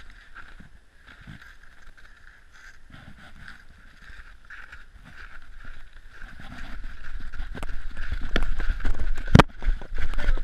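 Footsteps crunching through snow with rubbing and handling noise on a body-worn action camera, getting louder and busier in the second half, with one sharp knock about nine seconds in.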